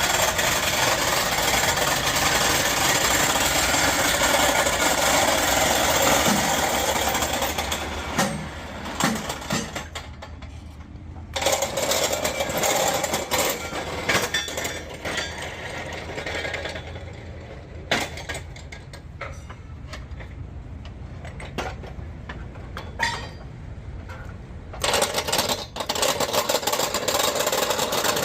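A power tool working on the steel of a bulldozer track chain: it runs loud for about eight seconds, then cuts in and out with sharp metal knocks and clicks, and runs loud again near the end.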